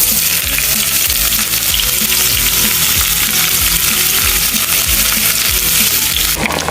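Food frying in a hot pan: a dense, steady sizzle and crackle that cuts off abruptly near the end.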